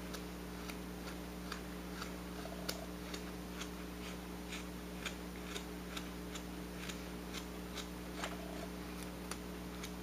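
Whittling knife taking small paring cuts in a wooden bird carving: faint crisp clicks about twice a second, over a steady low hum.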